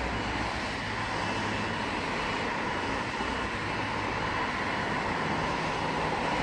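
Four-car V-set electric intercity train approaching the platform: a steady noise of motors and wheels on the rails over a low hum, growing slightly louder near the end.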